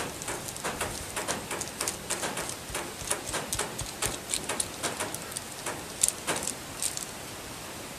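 Light, irregular crackling and ticking of paper and a plastic glue bottle being handled while gluing, several small clicks a second. It dies away about seven seconds in.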